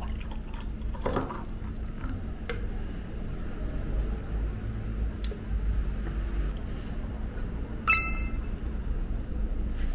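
Beer poured from a can into wine glasses, splashing into the glass. About eight seconds in, a glass clinks once in a toast, with a short ringing chime.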